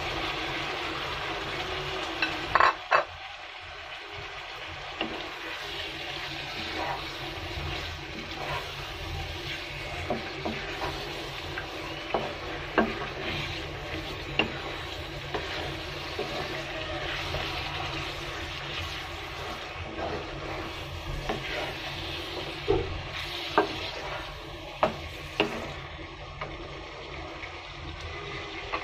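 Soaked mung dal stir-frying in a wok with potatoes and a fish head: a steady sizzle while a wooden spatula scrapes and knocks against the pan. Sharp knocks come at irregular intervals, with a cluster of louder ones about three seconds in.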